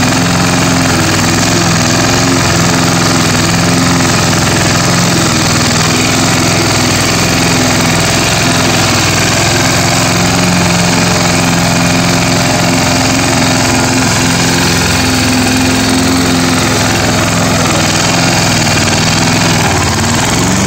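1981 Roper 22-inch push mower's single-cylinder Briggs & Stratton vertical-pull engine running steadily at full speed while cutting grass. Near the end the engine speed sags briefly and picks back up.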